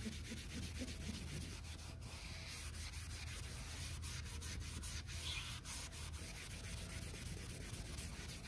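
A wet melamine-foam magic eraser scrubbing a textured vinyl boat seat: steady rubbing in many quick short strokes, over a steady low hum.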